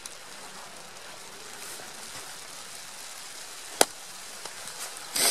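A small hatchet striking a block of firewood to split kindling: one sharp crack nearly four seconds in, then softer knocks near the end, over a faint steady hiss.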